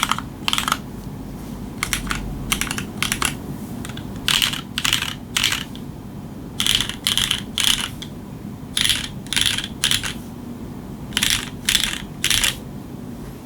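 Mechanical keyboard with unlubed Cherry MX Black linear switches on a PEI plate and GMK keycaps: keys struck one at a time in short runs of two to four, about two a second, each a sharp clack. The keystrokes stop about a second before the end, leaving a faint low hum.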